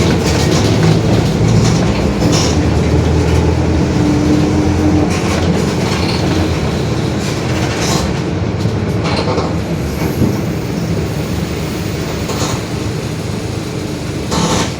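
Interior noise of a Mercedes-Benz OF-1721 city bus on the move: the diesel engine and drivetrain running steadily, with the growl of the rear differential. Body panels rattle, and there are a handful of short knocks spread through it.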